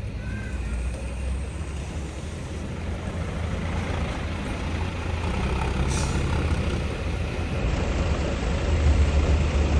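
Tour bus diesel engine running with a low rumble that grows louder toward the end, and a short hiss about six seconds in.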